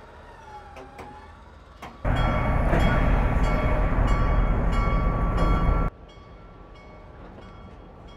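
Loud, steady mechanical rumble with a faint whine, starting suddenly about two seconds in and cutting off abruptly about four seconds later.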